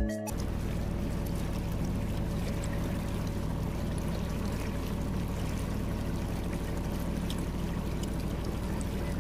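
Small motorboat under way: its engine running steadily with a low hum, and water rushing and splashing along the hull.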